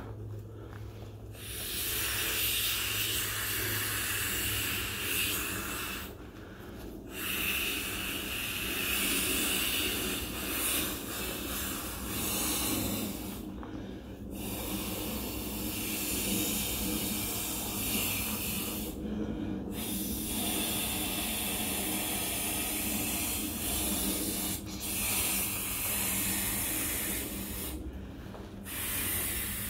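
A person blowing by mouth into the valve of a small plastic inflatable fish toy: long, airy breaths of several seconds each, broken by brief pauses for air about five times.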